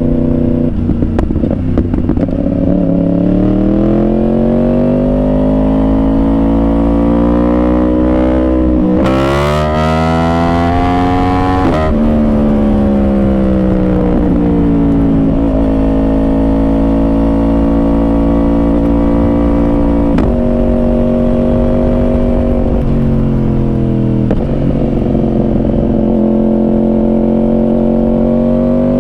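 Yamaha R1 inline-four engine with a Yoshimura exhaust, heard from the moving bike. The revs climb through the first several seconds, then rise sharply under hard acceleration from about nine to twelve seconds, with a short burst of hiss near nine seconds. They drop back and settle into a steady cruise, dipping slightly now and then as the throttle eases.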